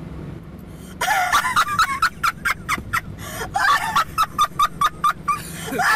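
A woman laughing hard in rapid, repeated shrill bursts, breaking out about a second in, over the steady low hum of a car cabin.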